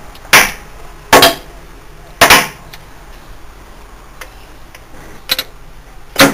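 Sharp metallic clunks from an old turret lathe's gearbox as its shift levers are worked and the sliding gears knock into place: three in the first two and a half seconds, the third a double knock, then more near the end.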